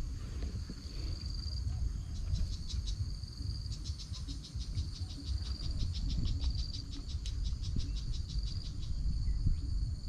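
Insects chirping: a steady high trill throughout, joined from about two seconds in until near the end by a rapidly pulsing chirp, over a low rumble.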